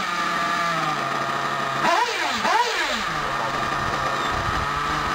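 Nitro R/C car engine idling at a high, steady pitch, blipped twice in quick succession about two seconds in, each blip rising sharply in pitch and falling straight back.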